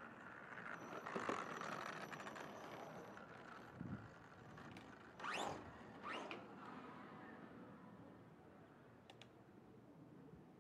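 Traxxas funny car RC drag car running past on asphalt: a swell of motor and tyre noise, then two short, loud rushing sweeps about five and six seconds in as it goes by, fading as it runs off down the lane.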